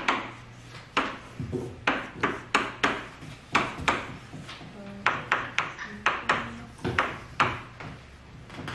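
Pens writing and tapping on paper on wooden school desks: irregular sharp taps, about two a second, with a faint murmur of voices.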